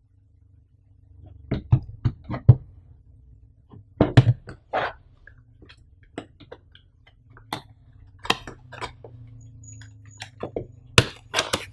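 Small cardboard product box handled close to the microphone: taps and scrapes as it is moved and turned on a table, then its tuck-in end flap is pried and pulled open, with several louder cardboard crackles near the end.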